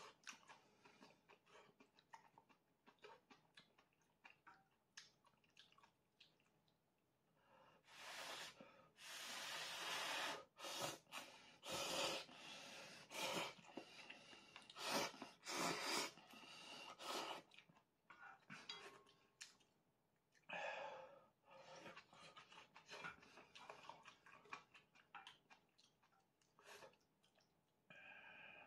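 A person slurping instant ramen noodles off chopsticks: a run of loud, long slurps starting about eight seconds in, then a few shorter ones, with soft chewing and small clicks between.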